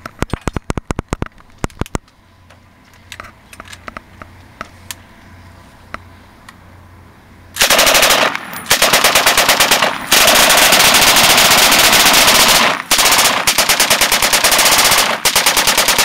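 Twin 7.62 mm M240B machine guns mounted on an ATV firing long bursts of rapid automatic fire from about eight seconds in, with brief breaks between bursts. Before that there are a string of sharp single shots and a few scattered pops.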